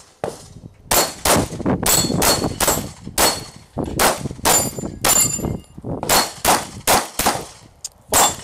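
Rapid strings of pistol shots, about three a second, beginning about a second in, with hits on steel plate targets ringing out between them.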